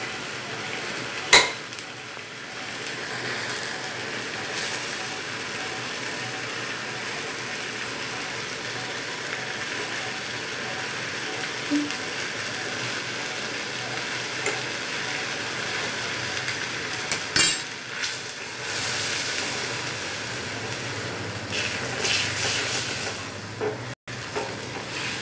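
Chicken in gravy sizzling steadily in a stainless steel kadai on a gas stove while a steel spoon stirs and scrapes the pan, as the gravy is cooked down. Sharp clinks of the spoon against the pan come about a second in and again about two-thirds of the way through.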